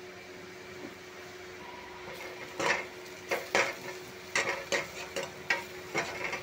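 Metal spoon clinking and scraping against a cooking pot while stirring: about ten sharp, irregular strikes that begin a couple of seconds in, over a steady hum.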